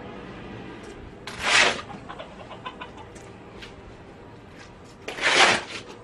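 A steel shovel scraping through wet mud across a concrete floor, twice, each scrape about half a second, with chickens clucking in the background.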